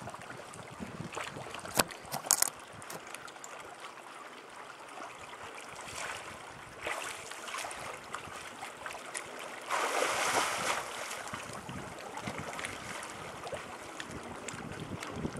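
Sea water lapping among rocks and a swimmer's splashing, a steady noisy wash with small clicks. There are a couple of sharp, loud clicks about two seconds in and a louder rush of water lasting about a second about ten seconds in.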